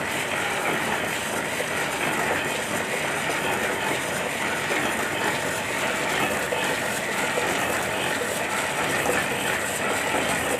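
Belt-driven screw oil expeller pressing mustard seed, running with a steady, dense mechanical clatter.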